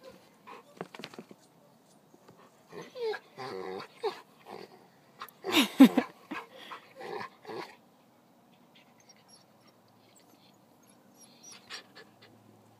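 An adult German Shepherd and a puppy play-fighting, with short bursts of growling from the dogs. The loudest burst comes about six seconds in. It goes quiet for the last few seconds, apart from a few faint clicks.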